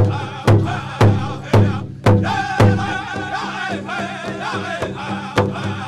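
Pow wow drum group singing a chicken dance song over a big bass drum. The drum is struck steadily about twice a second, drops out for a couple of seconds about halfway through while the voices carry on, and comes back in near the end.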